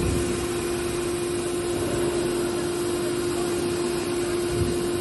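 Factory machinery running with a steady hum and one constant mid-pitched tone.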